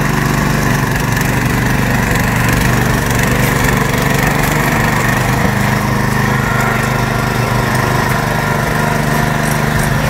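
Kalibr MK 7.0 petrol motor cultivator's four-stroke engine running steadily at an even pitch, warmed up with the choke off, as the cultivator's tines churn through grassy turf.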